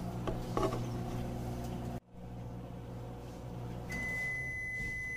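Microwave oven running with a steady hum, then one long high beep about four seconds in as its cooking cycle ends.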